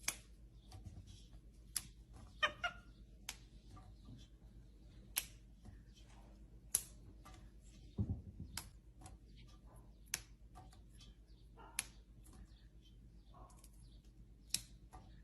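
Faint, irregular soft clicks and ticks over a low steady hum, with a few brief, quiet cat sounds.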